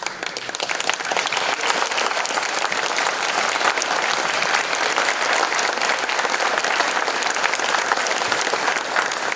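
Audience applauding: many people clapping together, swelling over the first second and then holding steady.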